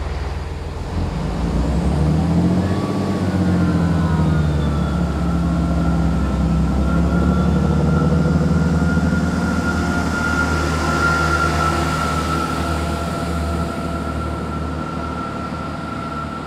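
Chiltern Railways diesel multiple unit pulling out of the platform: its underfloor diesel engines rev up with a rising pitch as it accelerates, then a steady high whine runs over the engine rumble. The sound fades over the last few seconds as the train heads off into the tunnel.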